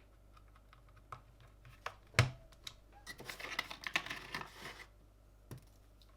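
Plastic clicks and clacks from mechanical keyboard parts being handled and pressed. There are scattered single clicks, a sharper knock about two seconds in, a quick run of clatter after that, and one last click near the end.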